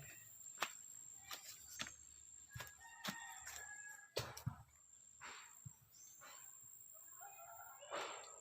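Village chickens clucking faintly in short calls, among scattered light clicks and knocks.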